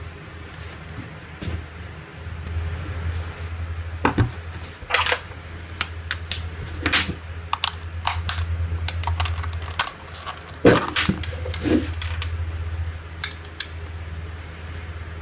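Hands handling a power bank and its packaging: a run of sharp clicks, taps and short rustles, the loudest about two thirds of the way in, over a steady low hum.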